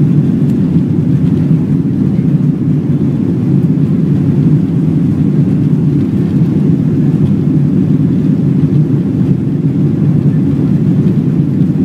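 Steady low rumble of a jet airliner's cabin noise, engines and rushing air, heard from inside the passenger cabin.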